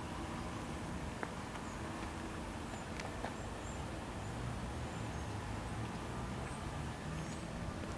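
Steady outdoor background rumble with faint, high bird chirps now and then.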